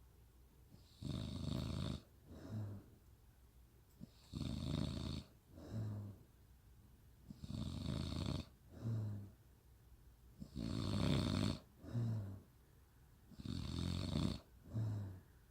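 A woman snoring in a steady rhythm, about five breaths, one every three seconds or so; each breath is a longer snore followed by a shorter, lower buzzing one, with quiet pauses between.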